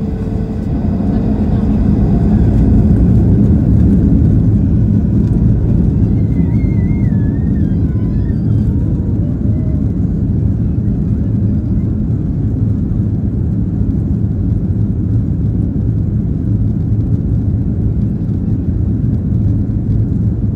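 Airliner engine and cabin noise: a loud, steady, low rumble that swells a little about two seconds in.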